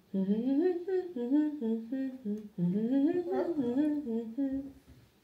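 A person humming a wordless melody in two phrases, the second starting about halfway through, as the clue in a song-guessing game.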